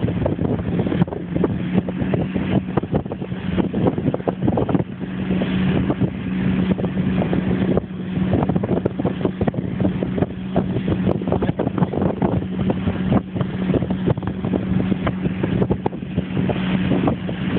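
Motorboat engine running steadily at towing speed, a constant low drone, with wind rushing over the microphone.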